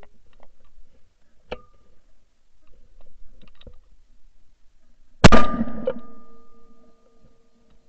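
A single shotgun shot about five seconds in, picked up by a camera clamped to the barrel: a sharp crack with a metallic clang and a ringing tone that hangs on for about two seconds. A lighter metallic click with a brief ring comes about a second and a half in.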